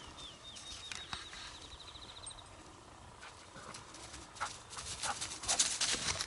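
Crisp rustling and crackling of something moving through dry grass and brush, getting louder in the last two seconds. In the first two seconds a small wild bird calls in the background with a fast series of repeated short notes.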